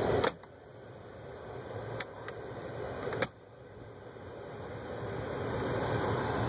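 Plastic glove box door snapping shut: a sharp click, two lighter clicks about two seconds in, and another sharp snap a second later. Under them is the steady rush of the dashboard blower with the engine idling.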